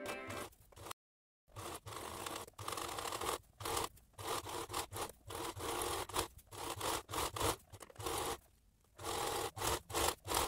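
Domestic sewing machine stitching a long gathering stitch through light fabric with a shirring foot, running in short bursts with many brief stops and a longer pause near the end.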